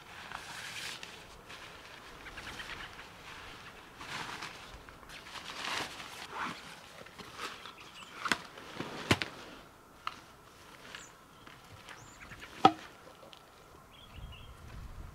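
A person handling gear and shifting on a gravelly lakeshore: scattered rustling and scraping with a few sharp clicks, the loudest a short ringing clink late on.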